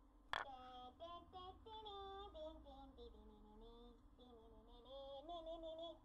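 A high, quiet voice singing a short melody of held notes that step and glide in pitch, starting just after a sharp click.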